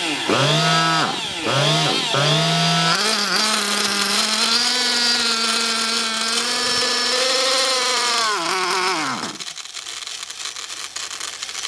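Small two-stroke nitro R/C engine running at high revs on a rich break-in mixture. Its pitch dips and recovers several times in the first few seconds, then holds a high steady note. About nine seconds in the note falls and drops away.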